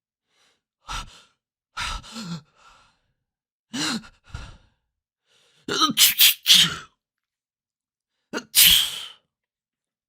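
People sneezing one after another: about five separate sneezes in different styles, several with a quick voiced 'ah' intake before the burst. The loudest come a little past the middle and near the end.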